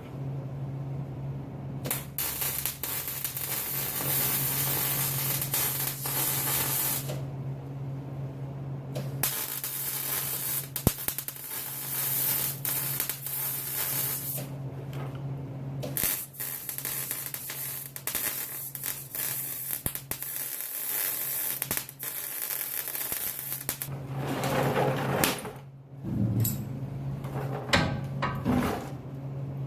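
Welder arc crackling and hissing in about three runs of several seconds each with short pauses between, welding up a joint in a new muffler's exhaust pipe, over a steady low hum.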